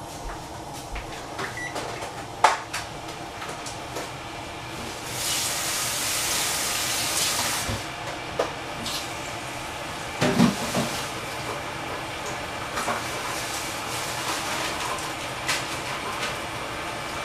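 Kitchen sounds of tea being made: scattered knocks and clicks of things being handled, a hissing rush about five seconds in that lasts nearly three seconds, and a louder clatter about ten seconds in, over a steady low hum.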